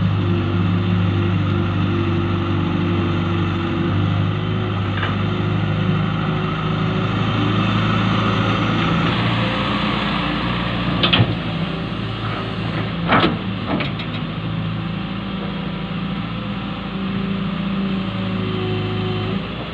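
John Deere 595D excavator's diesel engine running steadily under work, with a few sharp metallic knocks about halfway through.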